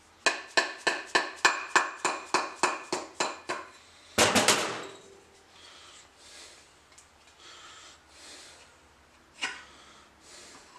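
An axe head being tapped down onto a new haft to seat it: about a dozen quick ringing taps, a little over three a second, then a louder clatter about four seconds in and one more sharp knock near the end.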